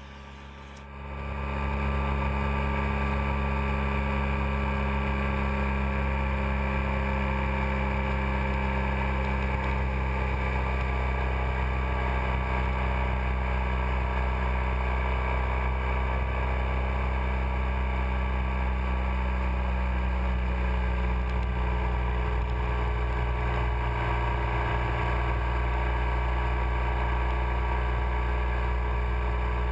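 Motorcycle engine running steadily at a constant cruising speed, fading in about a second in and holding an unchanging drone.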